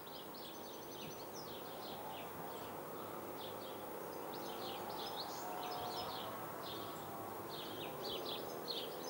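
Small birds chirping and singing, many short quick notes one after another, over a steady outdoor background hiss.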